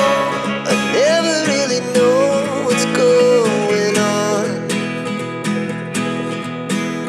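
Background music: a plucked acoustic guitar with a gliding melody line over it.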